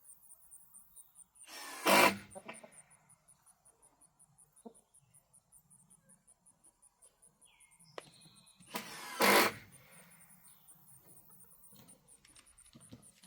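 Insects chirping steadily in a fast, even pulse, broken twice by a loud burst of noise under a second long, about two seconds in and again about nine seconds in.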